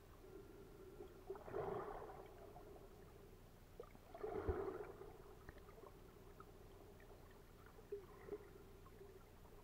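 Faint, muffled water sounds picked up by a camera held underwater in shallow sea, with two louder swishing surges of water movement about one and a half and four and a half seconds in, over a steady low hum.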